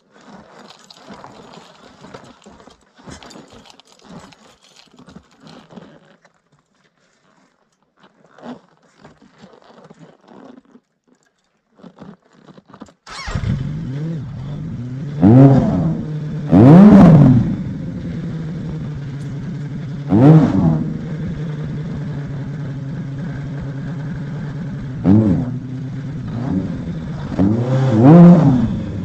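Faint scuffs and rustles, then about thirteen seconds in the Suzuki Bandit 1200S's inline-four engine starts and settles into a steady idle, blipped up and back down five times.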